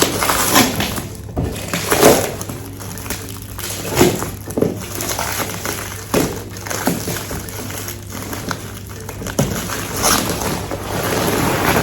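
Cardboard box and packaging being opened and handled: irregular crackles, rustles and knocks, a few of them sharp.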